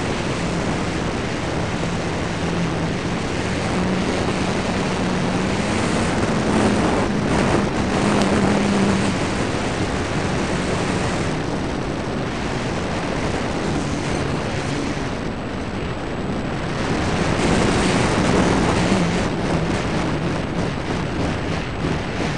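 Wind rushing over the onboard camera of an electric RC model plane, a ParkZone T-28 Trojan, with the motor and propeller giving a low hum under it. The hum climbs in pitch about a quarter of the way in, drops back around the middle, and wavers with the throttle after that.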